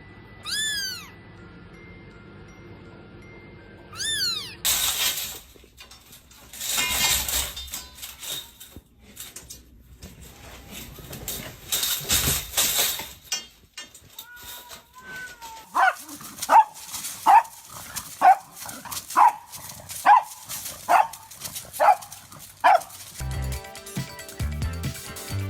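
A cat meowing twice, then a stretch of irregular noisy sound, then a run of about nine short, evenly spaced calls from a pet. Music comes in near the end.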